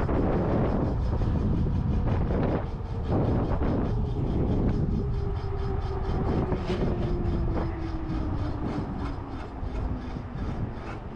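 Wind rumbling on the microphone while riding an electric bike with a QS 205 hub motor. From about halfway through, the hub motor's whine falls steadily in pitch as the bike slows.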